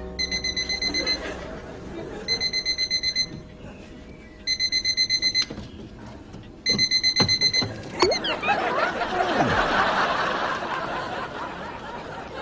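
Electronic alarm clock beeping in four bursts of rapid high beeps, each about a second long and about two seconds apart. A sharp knock comes just after the last burst, followed by a few seconds of studio audience laughter.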